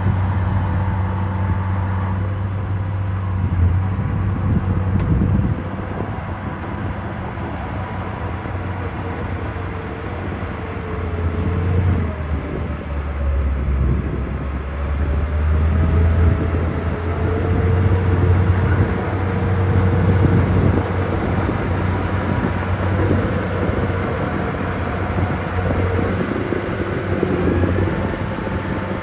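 Heavy diesel engines of earthmoving machinery running under load, steady and loud; about halfway through the engine note drops, then rises again.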